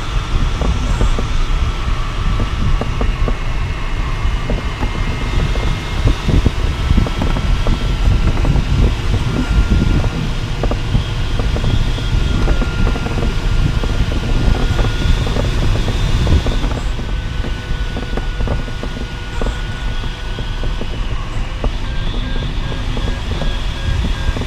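Airflow rushing past an LS 5 sailplane's cockpit, with low rumble and buffeting on the microphone. Over it, the variometer's audio tone slowly rises in pitch and turns into quick beeps near the end, the vario's signal for lift.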